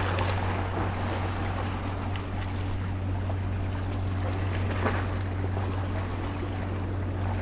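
Ocean waves washing and breaking against jetty boulders, with wind buffeting the microphone and a steady low hum underneath.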